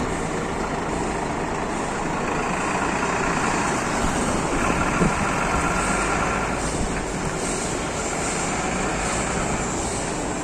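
Steady mechanical noise, with a single short knock about five seconds in.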